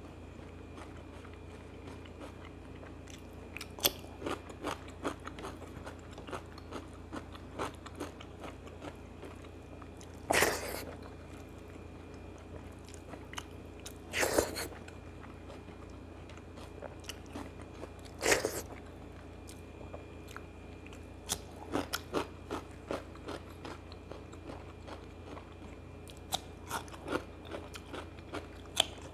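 Close-miked mouth sounds of a person eating rice and curry by hand: wet chewing and lip smacks in quick clicks, with three louder bites about 10, 14 and 18 seconds in.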